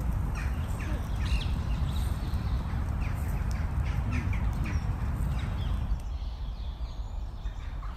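Outdoor woodland ambience: a steady low rumble with faint, brief bird calls scattered through it.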